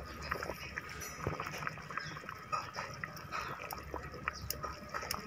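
Potatoes boiling in a pot of tomato-masala water: soft, irregular bubbling pops over a low simmer.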